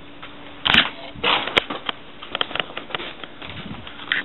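Close handling noise as the camera is picked up and moved: two sharp knocks in the first second and a half, then a run of lighter clicks, bumps and rustling.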